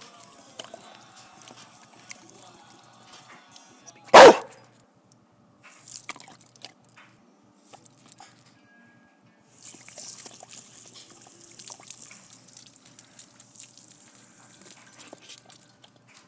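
A Border Collie gives one loud bark about four seconds in. Through much of the second half a garden hose sprays water with a steady hiss and scattered small splashes and clicks.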